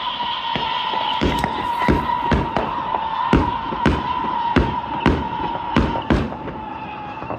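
Fireworks going off in quick succession, a dozen or so booms and bangs about twice a second. A steady high whistling tone runs under them and fades out near the end.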